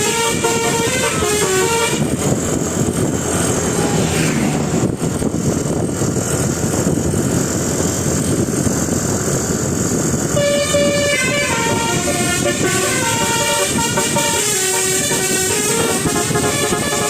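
Bus telolet horn, a Basuri multi-trumpet electric horn, playing a stepped tune of several notes. The tune breaks off about two seconds in, leaving loud vehicle noise, then starts up again about ten seconds in and plays on.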